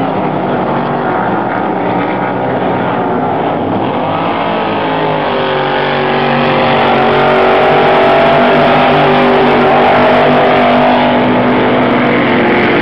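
Racing powerboat engines running hard, the sound growing louder about halfway through as the engine pitch shifts.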